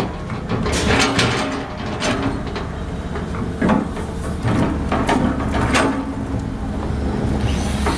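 Excavator engine running with a low steady hum, with irregular metallic clanks and knocks from the machine working.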